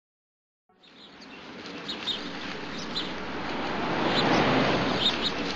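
Outdoor ambience fading in about a second in: a steady wash of background noise, with small birds chirping again and again over it.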